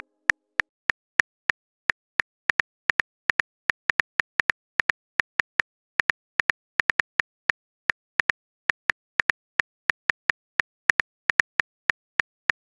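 Phone keyboard typing clicks from a texting app as a message is typed: short, sharp ticks at an uneven pace of about four a second.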